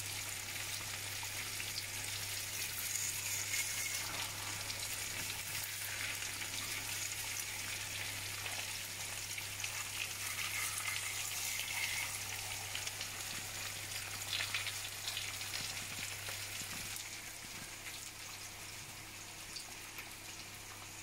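Eggs frying in oil in a pan: a steady sizzle with fine crackling, a little quieter in the last few seconds.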